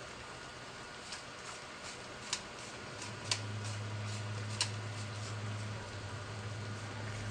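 A few light clicks of kitchen utensils or dishes, and a low steady hum of an appliance that starts about three seconds in.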